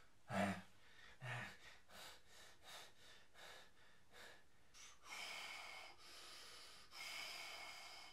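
A person gasping and breathing heavily. A sharp gasp comes about half a second in, then a run of quicker, fainter breaths, then two longer, noisy breaths of about a second each near the end.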